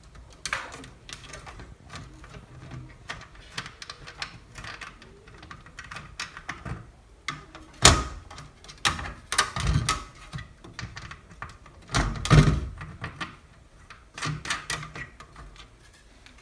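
Clicks, knocks and rattles of an LED module board being worked loose and pulled off a ceiling light fixture's metal housing. Several louder knocks come around eight, ten and twelve seconds in.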